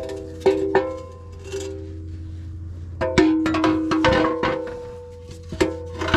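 Background music of plucked string notes in a light, picked melody.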